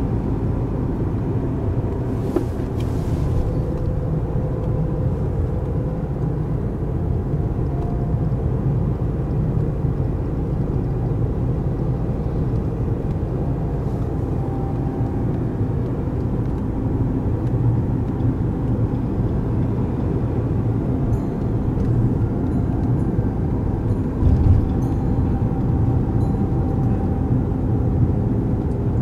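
Road and engine noise of a Honda car heard from inside the cabin while it drives along a town road: a steady low rumble, with a short thump near the end.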